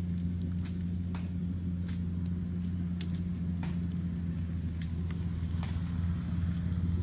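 A steady low rumble, with a few short, sharp clicks and snaps scattered through it.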